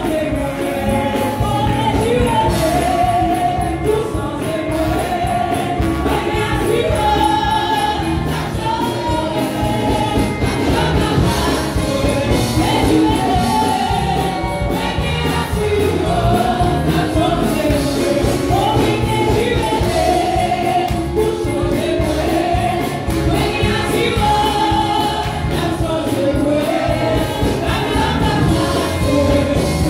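Live gospel worship music: a choir and congregation singing over instrumental accompaniment with a steady beat.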